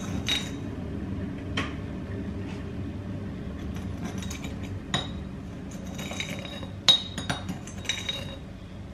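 Kitchen utensils clinking against glass and ceramic dishes on a counter: about six sharp, ringing clinks, the loudest about seven seconds in, over a steady low hum.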